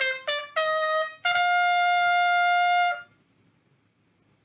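A short trumpet jingle: a few quick notes stepping upward into one long held note that cuts off about three seconds in. Near silence follows.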